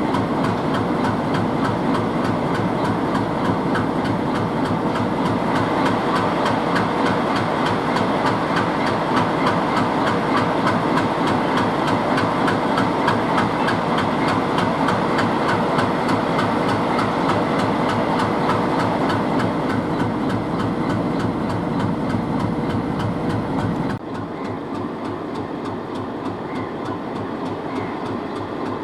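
A train rolling past, its wheels clattering rapidly over the rail joints in a steady run of clicks. The level drops suddenly about 24 seconds in and the rolling noise carries on quieter.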